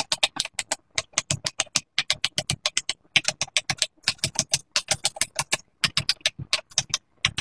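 Bubbles of a pop-it fidget toy being popped one after another in quick succession: a rapid string of sharp clicks, several a second, with a short break about three seconds in.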